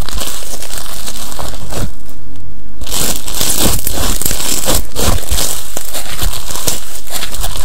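Frosted Popping Candy slime being squeezed, poked and stretched by hand, giving a dense crinkling crackle with many small sharp pops. It pauses briefly about two seconds in, then starts again.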